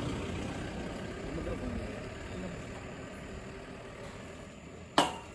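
Motorcycle engine idling, growing fainter. A single sharp click about five seconds in.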